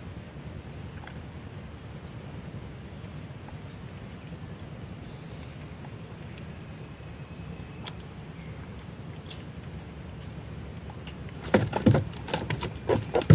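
A steady low rumble, then about two seconds before the end a quick, irregular run of loud knocks and thumps.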